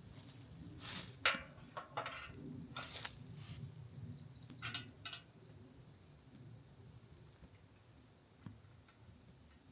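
Short rustles and clicks of hardware and parts being handled, bunched in the first five seconds and then thinning out. Behind them runs a steady high insect drone.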